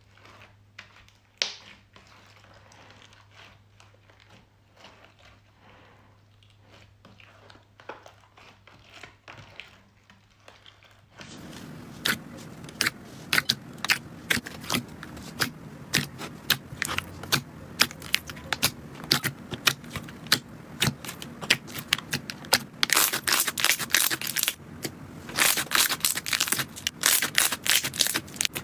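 Slime being squeezed and pressed by hands, making clicks and crackles. It starts soft and quiet over a low hum, then about eleven seconds in cuts to a louder clip of dense, crisp crackling and popping.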